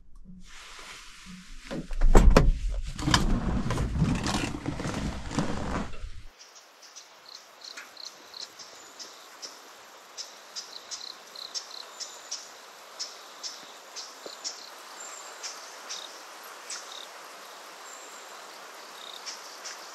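A sharp knock about two seconds in, then several seconds of loud knocking and rustling inside a small truck cab. This cuts off suddenly to a quiet outdoor background with short high insect chirps repeating irregularly.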